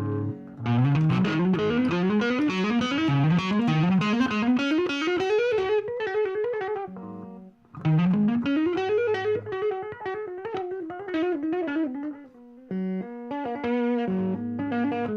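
Electric guitar with P90 pickups played through a JCM Sound amp-style pedal into an overdriven amp: runs of notes that slide upward in pitch, with a brief break about halfway and another near the end.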